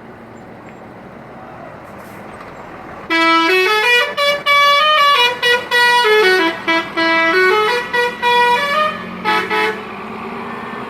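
A telolet horn plays a melody of bright, stepped tones that rise and fall in pitch. It starts about three seconds in and runs with short breaks until near the end. A low, steady hum runs underneath.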